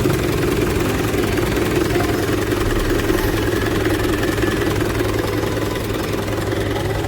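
Mahindra 475 DI tractor's four-cylinder diesel engine idling steadily, freshly started after a crankshaft pulley seal replacement and radiator overhaul.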